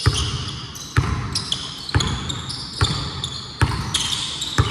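Basketball dribbled on a hardwood court, a bounce about once a second, with sneakers squeaking on the floor.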